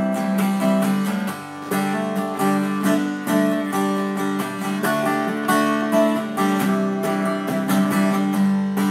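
Acoustic guitar strummed in a steady rhythm on a G chord, with small melody notes worked in within the chord shape.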